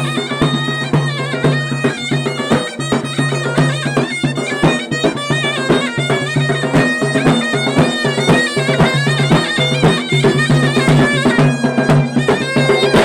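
Loud traditional folk music: a reedy wind melody with fast ornaments over a steady low drone, with drum strokes beating throughout.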